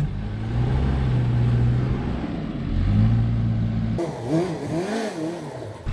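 A motor vehicle engine runs with a steady low hum, its pitch stepping up slightly about three seconds in. About four seconds in it cuts off abruptly to a warbling tone that swoops up and down, and near the end it cuts back to the engine hum.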